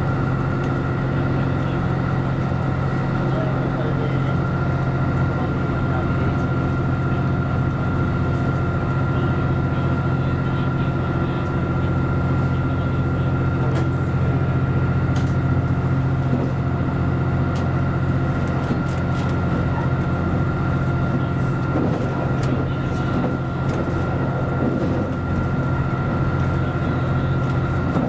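Series 85 diesel express train running at speed, heard from inside the front cab: a steady low engine and drive hum with a thin high whine over it, and occasional light clicks from the wheels and track.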